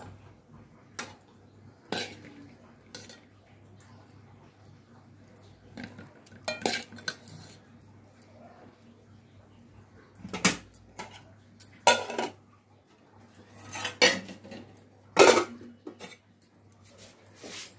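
A steel spoon scraping and clinking against an aluminium cooking pot while a curry is stirred, in scattered short clanks, the loudest about 15 seconds in as the aluminium lid is set on the pot.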